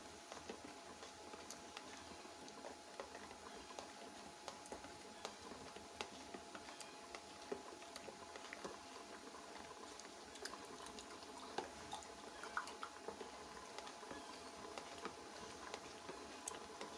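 Nehari broth simmering in an open aluminium pressure-cooker pot: faint bubbling with small irregular pops over a steady faint hum.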